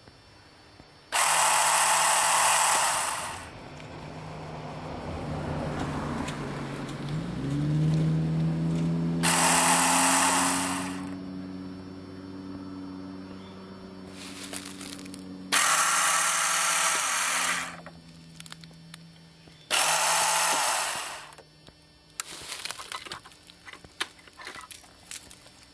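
Starter of a Honda CB700SC Nighthawk whirring like an electric fan in four bursts of about two seconds each as the start button is pressed, without turning the engine over. A lower hum rises in pitch and holds between the second and third bursts.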